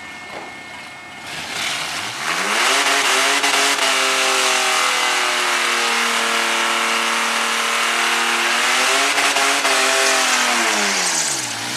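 3.8-litre V6 Mustang drag car doing a burnout. The engine revs up sharply about two seconds in and holds high and steady over the loud hiss of the spinning rear tyres, then the revs drop away near the end.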